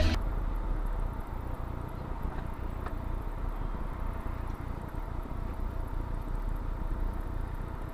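Low, steady rumble of a car's engine and road noise heard inside the cabin of a car stopped in traffic.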